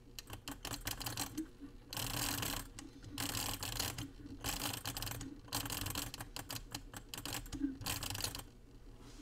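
Metal number tiles of a 1939 flip clock flipping in quick succession as the clock is run forward by hand. They sound as rapid clattering clicks in about seven spurts, with short pauses between them.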